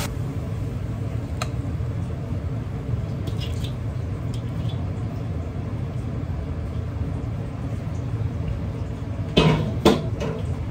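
Steady low kitchen rumble, with a faint click and a few light ticks, then near the end two short scraping knocks of a metal ladle against a ceramic plate as stir-fried beef is spooned onto it.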